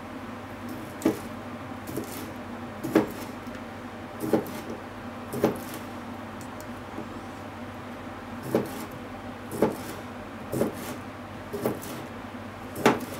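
Kitchen knife slicing wiener sausage on a plastic cutting board, each cut ending in a sharp tap of the blade on the board: about ten taps roughly a second apart, with a pause in the middle, over a steady low hum.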